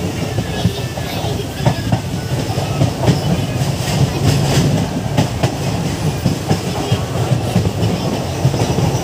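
Coaches of the 12602 Chennai Mail running round a curve, heard from an open coach doorway: a steady rumble of wheels on rail with irregular clacks over the rail joints.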